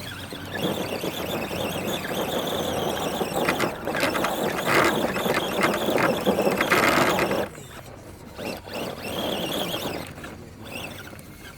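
RC rock crawler's electric motor and gears whining and grinding under throttle as it works up a climb. It is loudest from about three and a half seconds in and cuts off suddenly about seven and a half seconds in.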